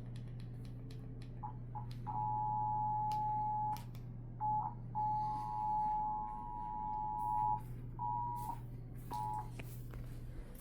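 Emergency Alert System attention signal: two steady tones sounding together, about 853 and 960 Hz. The signal comes through broken into short and long stretches with gaps, from about a second and a half in until nearly ten seconds in. A steady low hum runs underneath.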